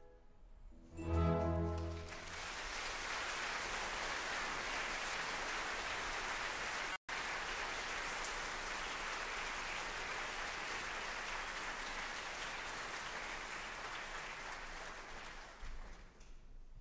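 Orchestra ending on a final chord, followed by a theatre audience applauding for over ten seconds; the clapping fades near the end. The sound cuts out for an instant about seven seconds in.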